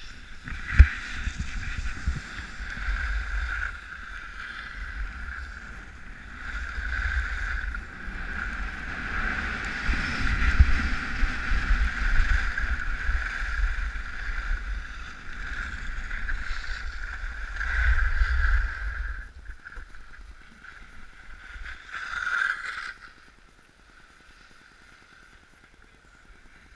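Wind buffeting an action camera's microphone during a downhill ski run, with the hiss of skis sliding over snow. The rush dies down about 19 seconds in and is almost quiet for the last few seconds as the skier slows.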